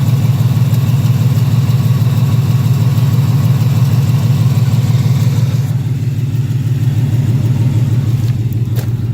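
Supercharged 2018 Ford Mustang GT's 5.0 Coyote V8 idling steadily, with a light, rapid ticking or clicking that the owner hears from the bottom of the engine. He hopes it is only noisy injectors and not a failing bottom end.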